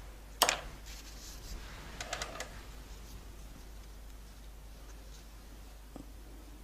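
A small metal modelling tool set down on the work table with one sharp click, then a quick run of light clicks and taps about two seconds in as the paste frill is handled. A faint tick near the end.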